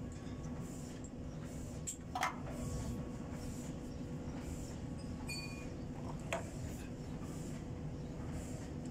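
Steady low background rumble with a faint steady hum, broken by a few light clicks about two seconds in and again past six seconds.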